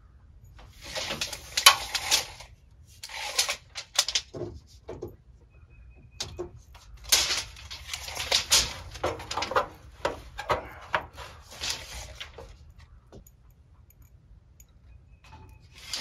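Steel tape measure pulled out and handled against the wooden wall framing, in several bursts of scraping and rattling with sharp clicks.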